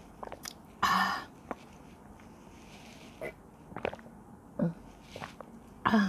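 Mouth sounds of a person drinking from a glass mug: separate gulps and swallows with breaths between them, the loudest about a second in and at the end.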